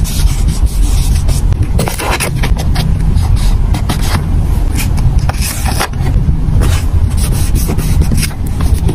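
Fingers rubbing and pressing paper stickers onto a planner page, with scraping from metal tweezers and short irregular clicks of handling, over a steady low rumble.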